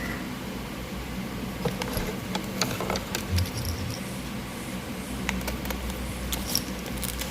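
Scattered small clicks and taps from hands handling the packaging and small items of a blind-box unboxing, over a steady low hum.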